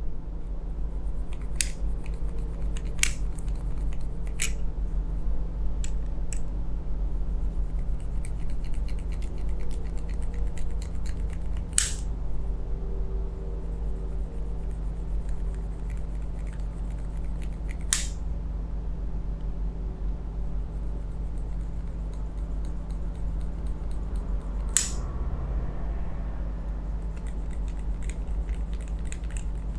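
Sharp plastic clicks and snaps from a yellow plastic massage tool being handled and flexed, coming irregularly every few seconds with faint crackling between them, over a steady low hum.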